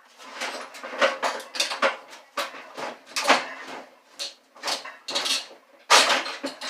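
Sheet-metal parts of a microwave oven clanking and scraping as they are pried and pulled apart, in a string of irregular knocks with the loudest about six seconds in.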